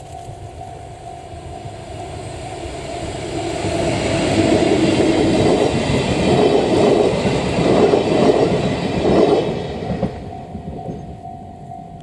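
Train of blue passenger coaches behind an ED75 electric locomotive running past, wheels clattering over the rail joints, loudest in the middle and fading after about ten seconds in. A level crossing warning bell rings steadily underneath.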